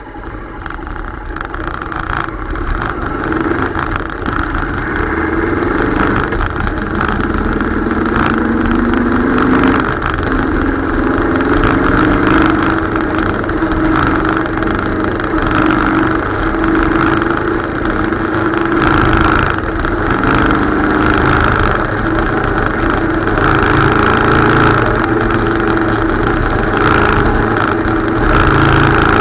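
Motorcycle engine pulling and accelerating while riding, its pitch climbing and then dropping at gear changes, with wind buffeting the microphone throughout.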